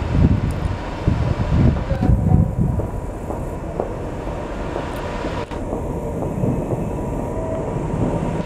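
British Rail Class 86 electric locomotive running slowly into the station: a steady low rumble with a faint steady hum, louder in the first couple of seconds.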